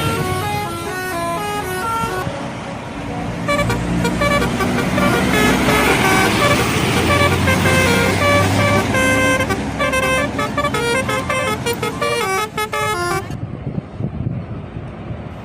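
Indonesian bus telolet horn playing a quick melody of short notes stepping up and down in pitch, repeated in several runs, over a bus's engine rumble and road noise.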